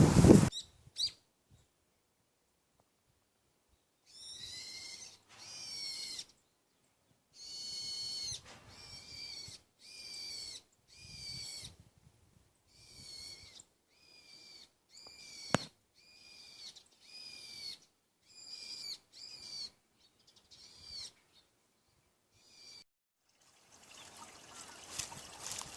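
A bird calling over and over: short, high, pitched calls, about one a second, with a brief sharp click about halfway through.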